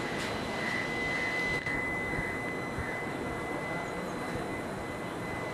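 A steady high-pitched whine on one pitch, over a low background rumble and hiss.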